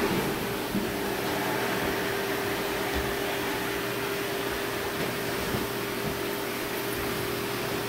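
Canister vacuum cleaner running steadily, a constant whirring noise with a steady hum through it.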